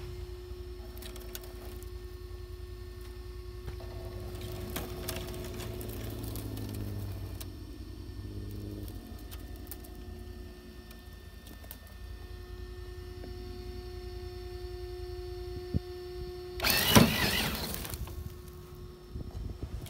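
Electric drive motor of an Axial SCX6 radio-controlled crawler whining steadily on a trail run, its pitch shifting with the throttle around the middle. There is a brief loud rush of noise near the end.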